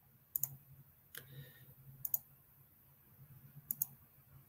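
Computer mouse clicking faintly: three quick double clicks spread through the few seconds, over a low steady hum.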